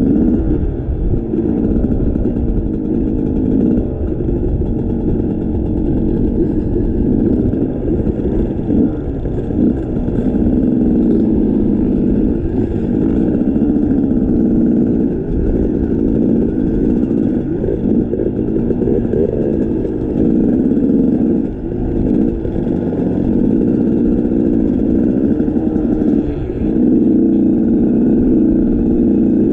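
A vehicle engine running steadily under way, its level dipping briefly every few seconds.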